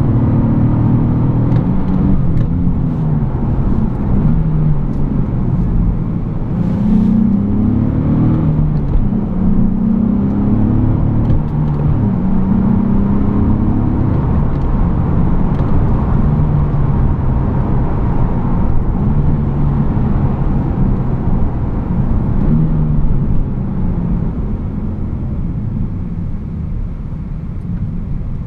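Nissan 370Z Nismo's 3.7-litre V6 engine heard from inside the cabin, revving up and dropping back in pitch several times in a row under acceleration. The engine note then holds lower and grows quieter over the last few seconds.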